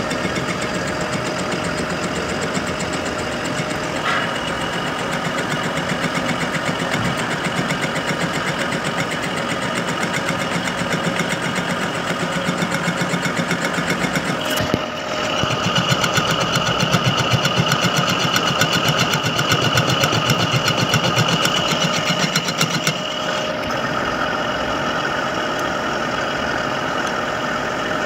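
Metal lathe running with a fast, even rattle while a tool cuts the end and bore of a spinning steel workpiece. About halfway through it grows louder and a high ringing tone from the cut joins in, then eases off several seconds before the end.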